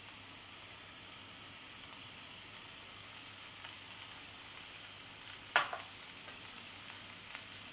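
Faint, steady sizzle of spiced potato slices in a pan just taken off the gas flame, with one sharp clack of a utensil against the pan about two-thirds of the way through.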